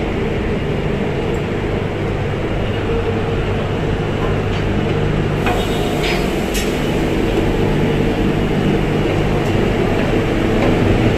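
Steady low drone of a car ferry's engines inside the ship, with a few faint knocks midway.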